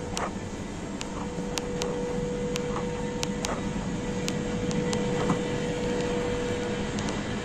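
Steady hum of a supermarket's air conditioning and refrigeration, with one constant mid-pitched tone running through it, and scattered sharp clicks and taps at irregular intervals.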